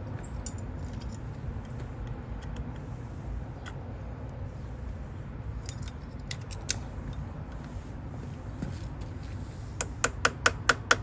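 A motorcycle key jangling and clicking as it is worked into a stiff lock on a 1974 Honda CB125. Near the end comes a quick run of sharp even taps, about four a second.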